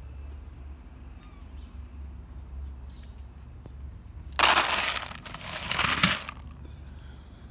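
Dry cat kibble poured into a stainless steel bowl, the pellets rattling against the metal in two quick pours lasting about two seconds, a little past the middle.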